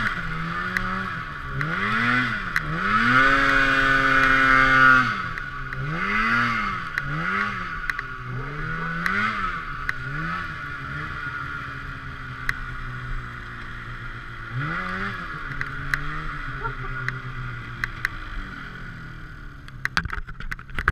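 Polaris Assault 144 snowmobile's two-stroke engine revving up and down over and over as the throttle is worked, heard from the rider's seat. Its pitch sinks and the sound grows fainter toward the end, with a run of sharp clicks in the last second.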